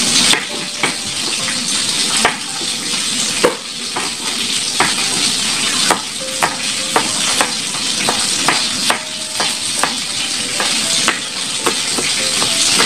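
Oil sizzling steadily as king fish head pieces fry in a pan, over sharp knife strokes on a bamboo cutting board as tomatoes are sliced, roughly one or two knocks a second.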